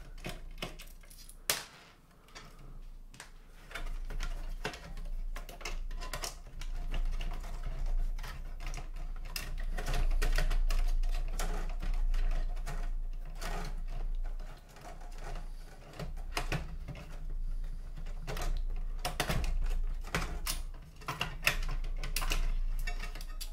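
Irregular clicks, taps and light clatter of hands removing screws and handling the plastic and metal parts of a mini hi-fi's cassette deck mechanism, over a low hum.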